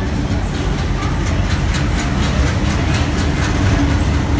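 WDM-3A Alco diesel-electric locomotive rolling slowly past on arrival, its engine giving a steady deep rumble. A run of evenly spaced sharp clicks comes from the wheels on the track.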